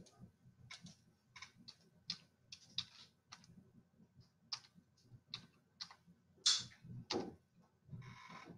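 Computer keyboard keystrokes and mouse clicks: a string of separate sharp taps at an uneven pace, one louder click about two-thirds of the way in, and a short rustle near the end.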